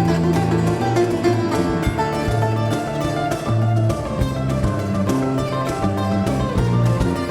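Live Latin–Indian fusion music from a small ensemble: plucked guitar and sitar lines over repeated low bass notes and steady hand-drum strokes.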